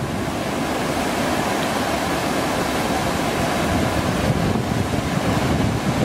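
Waterfall rapids: white water rushing over rocks in a steady, even rush.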